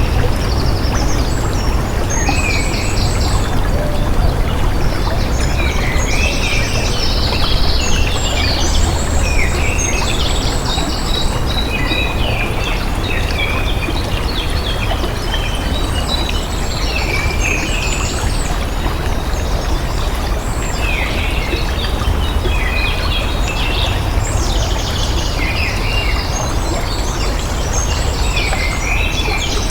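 Flowing water rushing steadily, with many small birds singing and chirping over it, their quick trills and twittering calls overlapping throughout.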